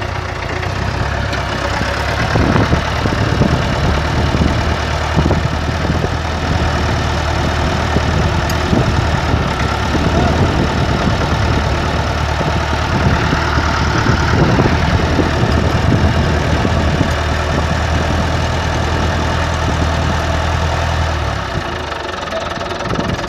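An engine idling: a steady low hum with irregular knocks over it. The low hum drops away near the end.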